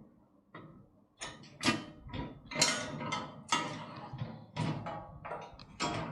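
Clanks, knocks and scraping as the parts of a heavy motorcycle wheel chock are moved and refitted by hand: a run of sharp hits, some with a short ring, from about a second in.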